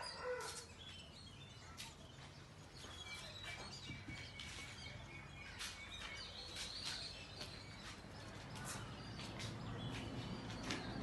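Small birds chirping on and off with scattered short clicks, over a faint low hum.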